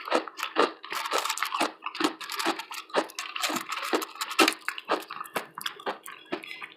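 Close-miked eating: a person chewing food with many short, irregular wet smacks and clicks, several a second.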